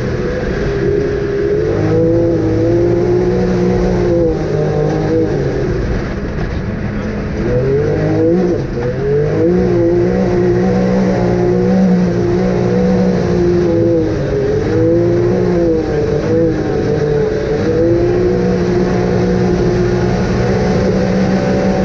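Off-road 4x4 vehicle engine running hard, its revs rising and falling repeatedly as it is driven.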